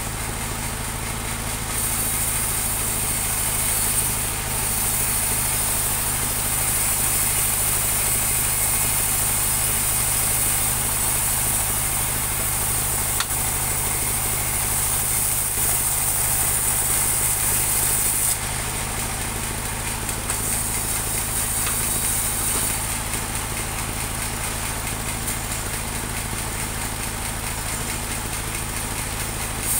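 Engine of a mobile band sawmill running steadily, with a high hiss over it that comes and goes, dropping out for a couple of seconds past the middle.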